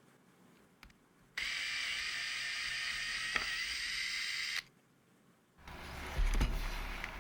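Electric screwdriver's motor whirring steadily for about three seconds as it backs out the drivetrain screws, then stopping sharply. A second, lower-pitched run of the tool starts near the end.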